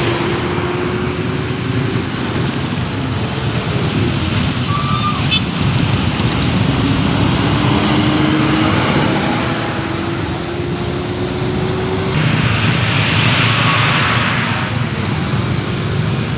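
Road traffic: vehicle engines running, one engine note rising slowly over a steady rumble.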